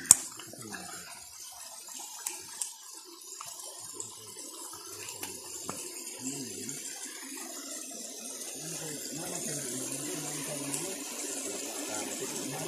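Water of a shallow rocky creek running, a steady hiss that grows a little louder in the second half, with faint voices in the background. A single sharp click sounds right at the start.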